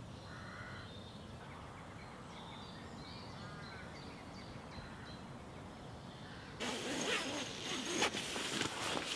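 Birds calling faintly in quiet woodland. About two-thirds of the way in, loud rustling and crinkling of fabric starts suddenly, with many small clicks: someone stirring inside a Snugpak Stratosphere bivvy shelter.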